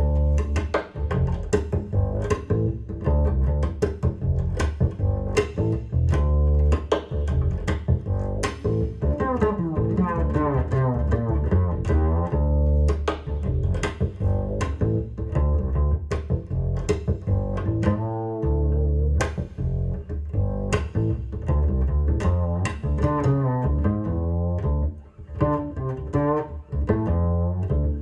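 Double bass music, plucked, with strong low notes and quick runs up into the high register, recorded as it plays back over a hi-fi loudspeaker system in a listening room.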